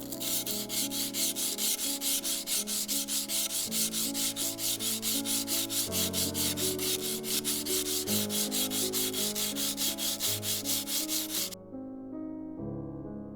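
Hand sanding of a forged Damascus steel knife blade: quick, even back-and-forth strokes of abrasive paper on the steel, about five a second, stopping abruptly near the end. Background music plays underneath.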